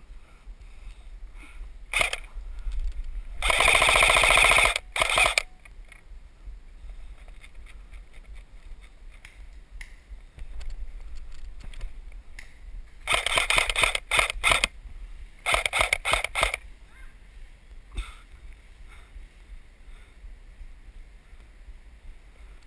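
Airsoft electric rifles firing full-auto bursts: a short burst about two seconds in, a long burst of nearly two seconds around four seconds in, and a couple more bursts near two thirds of the way through, each a rapid mechanical rattle of shots.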